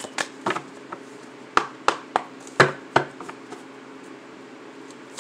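A tarot deck being shuffled and handled over a table: a run of sharp card snaps and taps, the loudest a little past a second and a half in and about two and a half seconds in, then quieter handling.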